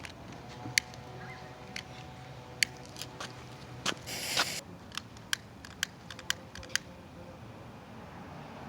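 Fireworks going off: a scattered string of about ten single sharp cracks and pops, with a brief hiss about four seconds in.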